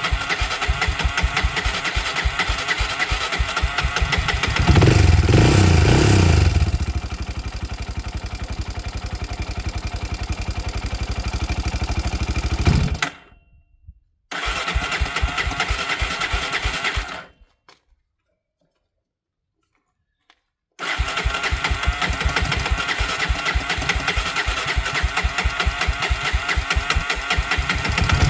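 Honda TRX300EX's single-cylinder four-stroke engine running on choke just after a cold start, revved up briefly about five seconds in. It dies away at about thirteen seconds, runs again for a few seconds, then after a few seconds of silence runs steadily again.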